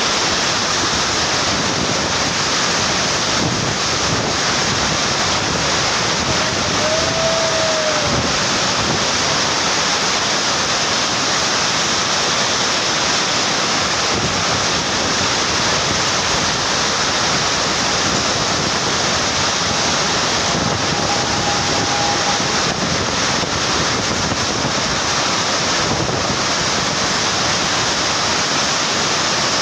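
Heavy rain falling: a steady, dense hiss. A faint short tone rises and falls about seven seconds in, and another is held briefly a little past twenty seconds.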